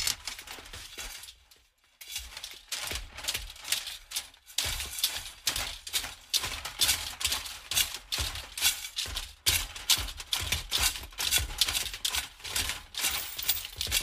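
Metal rattling rhythmically: a dense clatter of small metal pieces shaken in a quick, regular beat. It dies away about a second in and starts again sharply a moment later.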